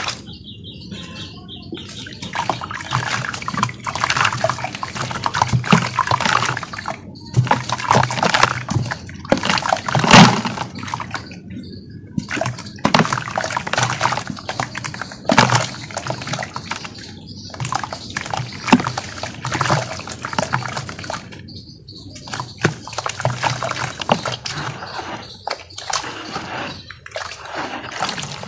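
Hands sloshing through and squeezing a watery red-dirt mud slurry in a metal basin: repeated wet splashes and squelches in irregular bursts with short pauses, the loudest about ten seconds in.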